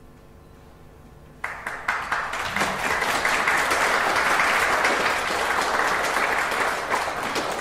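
A group of people applauding, starting suddenly about a second and a half in and going on steadily.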